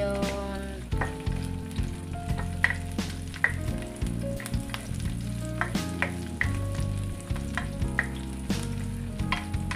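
Chopped onion and garlic sizzling in hot oil in a stainless steel frying pan while a spatula stirs them, with irregular scrapes and taps of the spatula against the pan.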